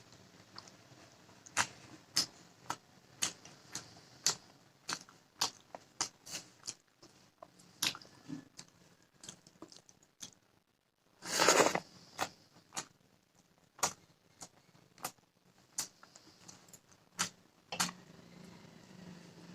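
Close-up mouth sounds of a person eating fish curry and rice: chewing and lip-smack clicks, roughly two a second. About eleven seconds in there is one louder, longer noise, a bite or a crunch.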